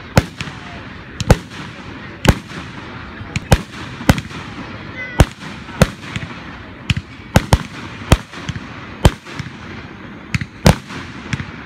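Aerial fireworks bursting one after another: sharp bangs roughly once a second, some in quick pairs, over a steady background hiss.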